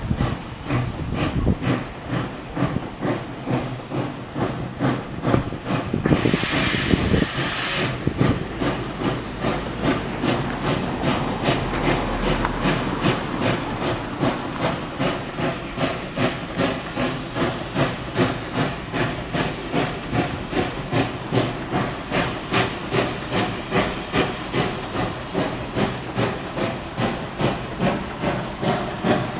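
Canadian Pacific 3716, a 2-8-0 steam locomotive, pulling a train: a steady, even rhythm of exhaust chuffs. A brief burst of steam hiss comes about six seconds in.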